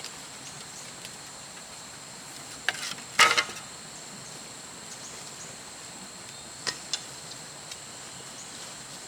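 Insects droning steadily in two thin high tones, with a few short knocks or scrapes: a cluster about three seconds in, the loudest, and two quick ones near seven seconds.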